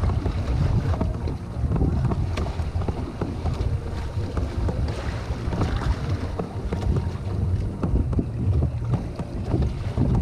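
Strong wind buffeting the microphone in a steady low rumble, with choppy surf splashing irregularly against the hull of a Hobie Adventure Island sailing kayak.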